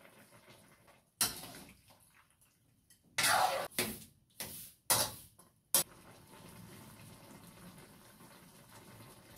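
A spatula scraping and knocking against a large metal wok of chicken feet during stirring: a single knock about a second in, then a run of short scrapes and clanks a couple of seconds later, ending in a sharp click.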